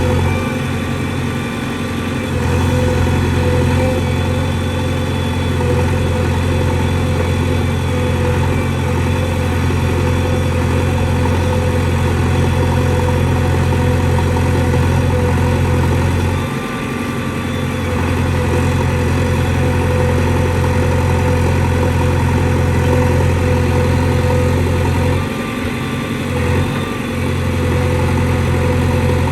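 JCB backhoe loader's diesel engine running steadily at a low, even drone, dipping briefly about seventeen seconds in and twice more around twenty-five seconds in.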